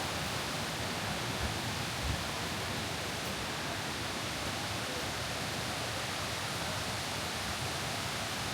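Steady rush of water from the cascading limestone waterfall pools, an even unbroken hiss. Two soft low thumps come about a second and a half and two seconds in.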